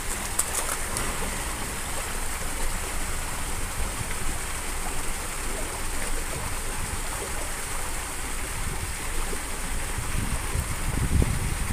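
Water splashing and lapping against the rocks at the water's edge, a steady rushing noise, with a low rumble swelling near the end.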